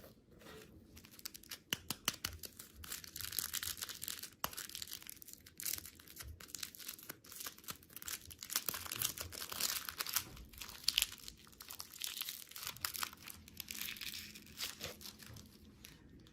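Plastic candy wrapper being torn open and crinkled: a dense, irregular run of crackling with many sharp clicks.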